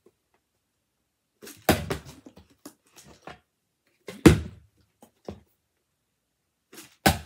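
Plastic water bottle and plastic tub knocking down onto a wooden board: three sharp thuds spaced a few seconds apart, each trailed by a few smaller clicks and rattles.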